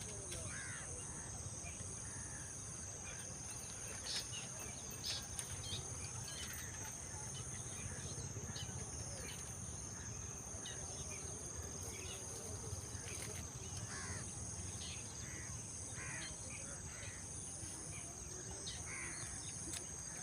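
Forest river ambience: a low steady rush of flowing water under a high, continuous insect trill, with a second, higher trill switching on and off. Short bird chirps come and go throughout.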